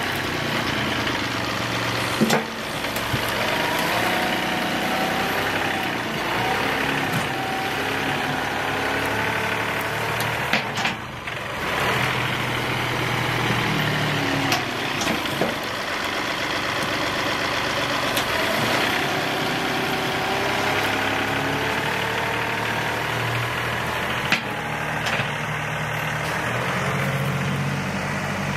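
John Deere 2038R compact tractor's three-cylinder diesel running as the front loader bucket is worked over freshly ground stump chips, the engine pitch rising and falling. A few sharp knocks sound, about two, eleven and twenty-four seconds in.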